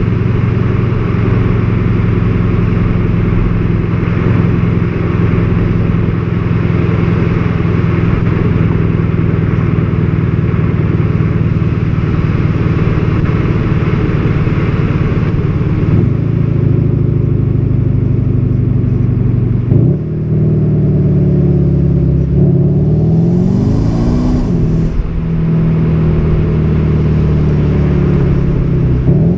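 Volkswagen Golf 7 GTD's 2.0-litre turbodiesel engine under way, holding a steady pitch through the first half. From about halfway it changes gear several times, the pitch breaking at each shift and rising and falling between them as it accelerates.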